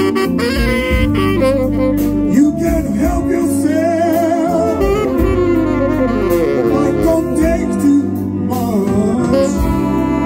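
Jazz band playing a slow, bluesy ballad, with a saxophone taking the melody over guitar, bass and drum kit.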